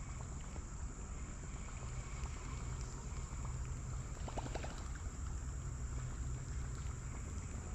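Small kayak moving slowly on a calm creek: a steady low rumble of water and wind at the microphone, with a thin steady high-pitched whine and a brief cluster of light clicks about four seconds in.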